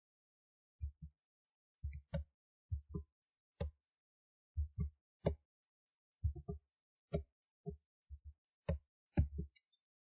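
Computer keyboard being typed on: irregular single keystrokes, each a short knock with a low thump, a few keys at a time with short pauses.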